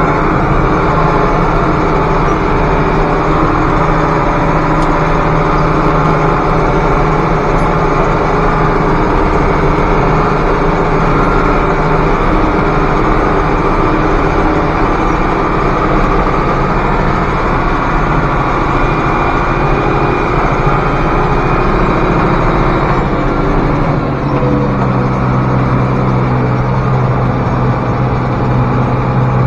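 International Harvester 1086 tractor's six-cylinder turbo diesel running steadily under way with a wagon in tow; the owner says its engine knocks from a warped cylinder head. Near the end, a deeper drone grows stronger.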